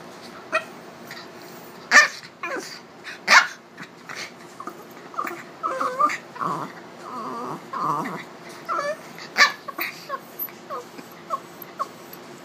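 Two small dogs, a miniature pinscher and a chihuahua mix, play-fighting: sharp yips and barks, loudest about two, three and nine seconds in, with whining growls in between.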